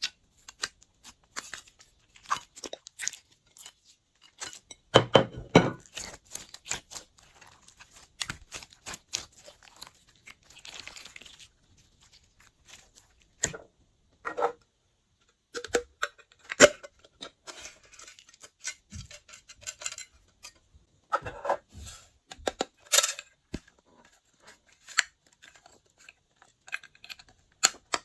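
Glossy slime being squished and mixed by hand, giving sticky clicks, pops and crackles in quick, irregular runs, with denser bursts about five seconds in and again near twenty-two seconds.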